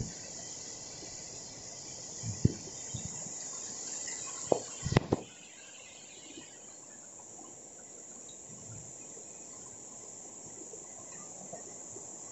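Steady high-pitched buzzing of a tropical forest insect chorus, thinning out about halfway through. A few short knocks come in the middle, the sharpest about five seconds in.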